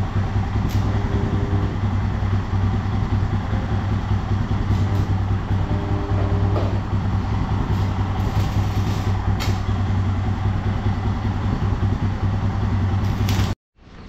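Electric arc welding on the steel saddle-stay frame of a motorcycle: a steady crackle and sizzle of the arc over a low electrical hum, tacking the frame in place for a fit check. It stops abruptly near the end.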